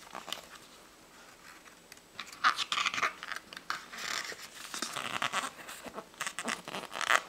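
Pages of a book being turned and smoothed flat by hand, a run of paper rustling and crinkling that starts about two seconds in and lasts some five seconds.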